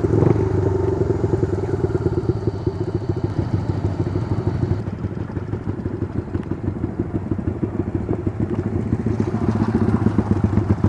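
Motorcycle engine running steadily, with a rapid even firing pulse that grows a little louder near the end.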